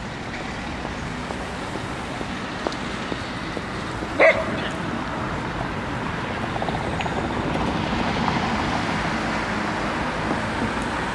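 Steady outdoor city-street background noise that swells slightly after the middle. A dog gives a single short, loud bark about four seconds in.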